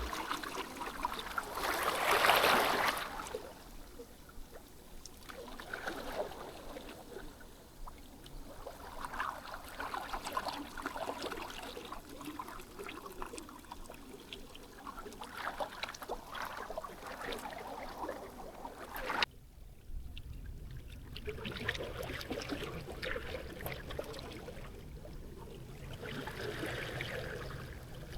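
Small sea waves washing and lapping at the shore, swelling and fading in uneven surges. About two-thirds of the way through the sound breaks off suddenly, and a low rumble runs under the water from then on.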